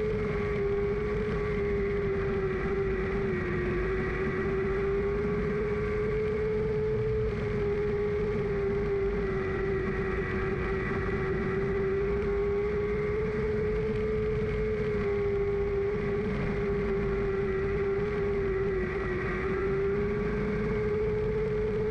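Lightning Sprint race car's engine heard from the car's own onboard camera, running hard at fairly constant high revs with only small rises and dips in pitch, over heavy wind and rumble noise.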